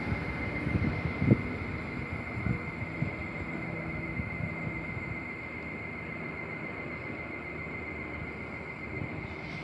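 Wind buffeting the microphone: a steady rumbling haze with irregular low thumps, the strongest about a second in, over a faint steady high hum.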